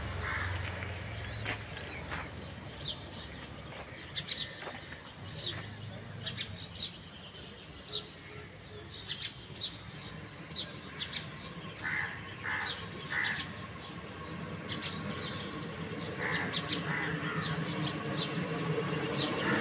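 Small birds chirping: short, high, quick chirps repeating over and over, against a steady low background noise.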